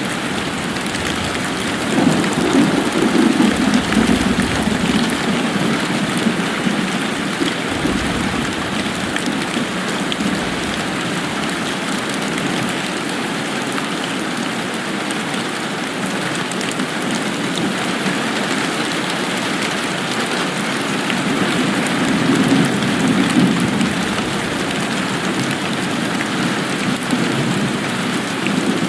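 Steady rain falling, with two low rolls of thunder swelling up, one a couple of seconds in and another about three-quarters of the way through.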